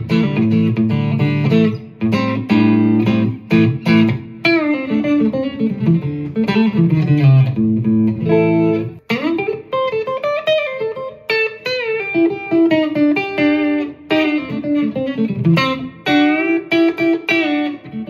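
Latitude Lark Telecaster-style solid-body electric guitar on its neck pickup, played through a Fender GTX100 amp: chords and low notes at first, then from about halfway single-note lead lines with string bends.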